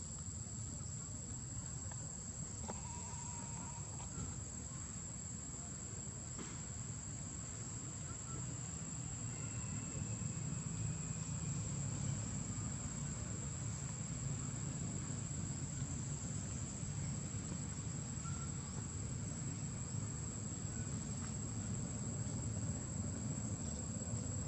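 Insects droning steadily in one high, unbroken tone, over a low rumble.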